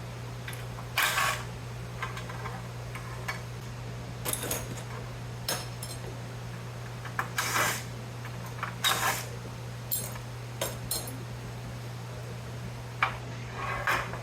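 Screws being worked out of the metal plates of a scrapped electrical panel: scattered short clicks, ratcheting and metal clinks at uneven intervals, over a steady low hum.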